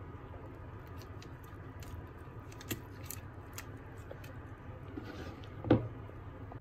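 Basting utensil dabbing and scraping over roasted chicken drumsticks in a foil-lined roasting tray: small clicks and crinkles of foil, with one sharper knock near the end, over a steady low hum.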